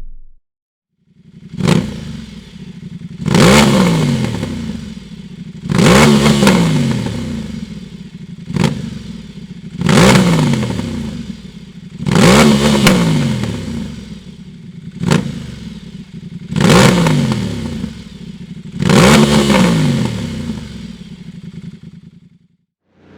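Ducati XDiavel 1260 S's 1262 cc Testastretta L-twin, breathing through a Dominator HP5 aftermarket muffler, idling and revved in about eight sharp throttle blips, some short and some held longer, its pitch falling back to idle after each one.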